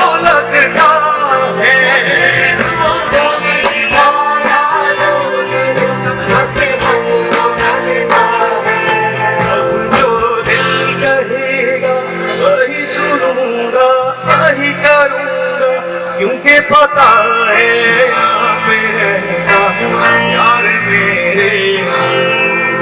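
Live band with drum kit, bass, guitars and traditional strings such as sitar and sarangi playing a loud instrumental passage. Drum hits sound over bending melodic string lines.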